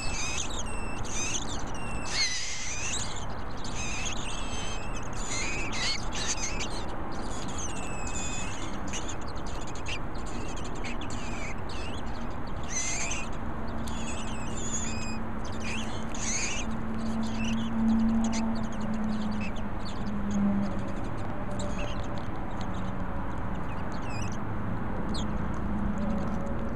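Western scrub jay nestlings begging for food: many short, high calls in quick succession from several chicks, thinning out after about halfway. A low hum comes in under the calls around halfway through.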